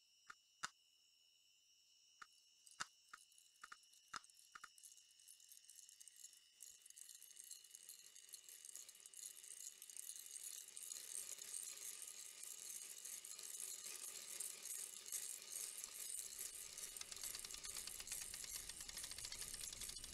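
Foley for doll eyes: a handful of small sharp clicks at irregular intervals as the dolls' eyes open and turn, over a faint steady high tone. From about five seconds in, a dense, high rattling hiss swells steadily louder.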